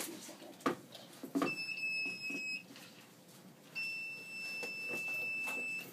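An electronic alarm on medical equipment sounds two long, steady, high beeps, the first about a second long and the second about two seconds. A couple of short knocks come shortly before the first beep.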